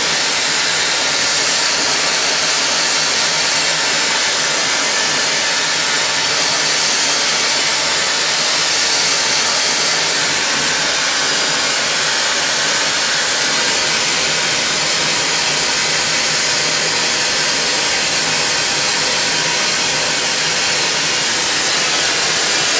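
Steady hiss of a gas-and-oxygen torch flame on a glass lathe, heating borosilicate glass.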